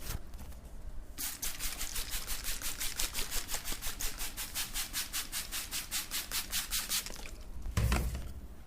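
Fast, even rubbing strokes of a head massage on scalp and hair, about six a second, starting about a second in and stopping near the end, followed by a dull thump.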